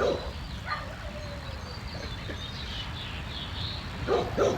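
Outdoor background noise with faint birds chirping, plus a few brief voice-like sounds at the start and just before the end.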